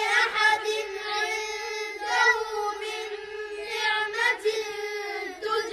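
A child's high voice chanting a Quranic verse in melodic recitation, the melody rising and falling in long phrases.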